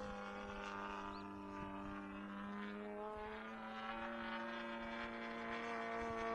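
Desert Aircraft DA-120 twin-cylinder two-stroke gasoline engine, turning a 28x10 carbon propeller on a 104-inch RC aerobatic plane, droning steadily in flight at a distance. Its pitch shifts a little about halfway through as the plane moves or the throttle changes.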